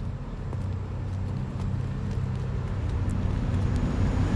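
Low, steady rumble of a motor vehicle engine, growing somewhat louder near the end.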